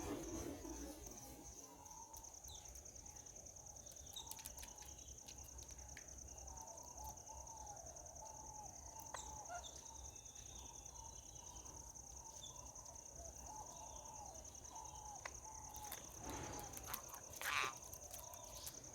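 Faint outdoor ambience: a steady high-pitched insect drone, like crickets or cicadas, with soft bird chirps repeating through it. There are a few light clicks and a brief louder rustle near the end.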